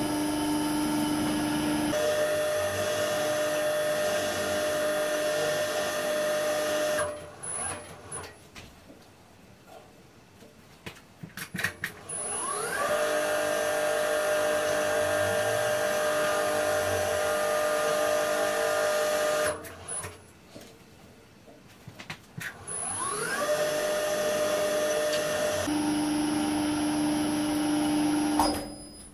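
Electric drive of the Uzor-N1 cold-forging machine running its pipe-bender rollers, rolling a 20×20 mm square steel tube with a steady whine. It stops about seven seconds in, then starts twice more with a rising whine as the motor spins up, each run lasting several seconds. A few short clicks fall in the pauses between runs.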